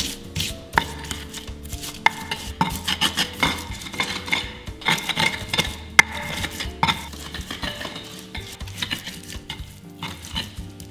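Stone pestle pounding and grinding fresh spices in a stone mortar (Indonesian cobek and ulekan): irregular sharp knocks of stone on stone with crunching and scraping as shallots, garlic, candlenuts and chillies are crushed into Balinese base genep spice paste.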